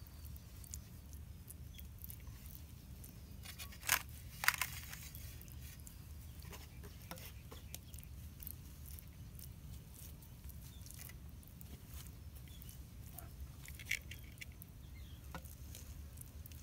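Hands rubbing a thick, wet spice paste onto raw carp slices: faint soft squishes and pats, with a couple of brief sharper clicks about four seconds in.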